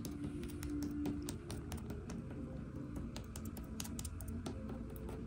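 Light, irregular taps on the wooden panels and stiles of an antique door, several a second, sounding out the wood for hollow spots where glued joints have come loose.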